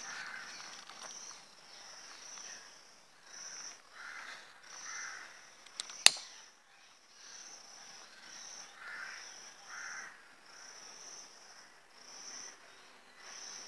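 Insects, crickets by the sound tags, chirping in short pulses about once a second. About six seconds in comes a single sharp click as a disposable lighter is struck.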